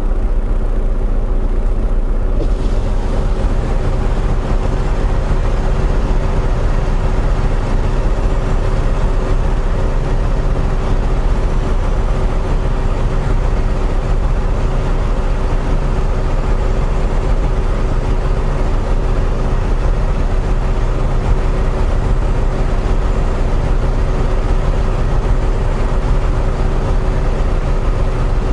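Volvo VNL860 semi-truck's diesel engine running, heard from inside the cab as a steady low drone with a higher hiss joining about two seconds in.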